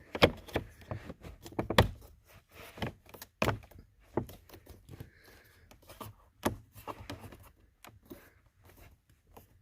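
Plastic cabin air filter cover being handled and pushed back into place over the filter housing: a string of irregular clicks, knocks and thunks of hard plastic, with the loudest knocks in the first few seconds.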